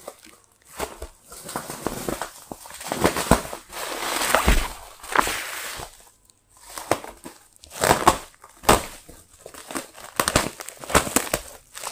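Plastic bubble wrap crinkling and tearing as it is slit with a knife and pulled apart by hand, in irregular bursts of crackling with sharp clicks.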